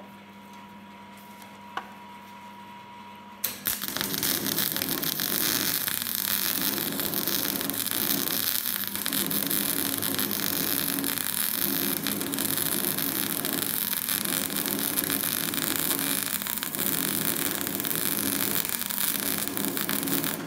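Electra Beckum MIG welder humming at idle, then about three and a half seconds in a flux-cored gasless welding arc strikes and crackles steadily until it stops suddenly at the end. The welder blames uneven wire feed on a feed roller that sometimes sticks.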